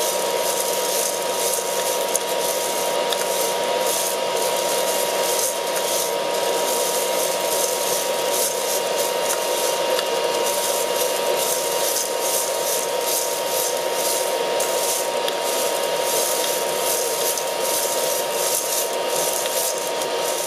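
Aillio Bullet R1 coffee roaster's cooling-tray fan running steadily with a faint whine, cooling freshly roasted beans, which rustle as they are stirred in the tray.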